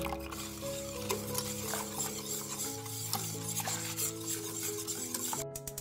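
Wire whisk beating a thin milk and egg-yolk batter in a stainless steel bowl, its wires stirring against the metal in quick irregular strokes; the whisking stops shortly before the end.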